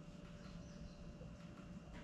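Near silence: faint room tone with a steady low hum and a thin steady higher tone.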